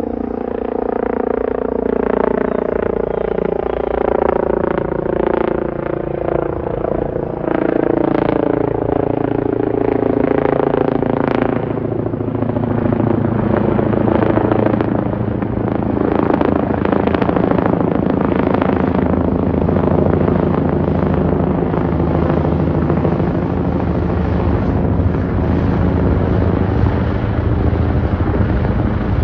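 Helicopter flying low overhead. Its engine and rotor whine falls slowly in pitch as it comes over, then the rotor's rapid chopping beat takes over as it passes and moves away.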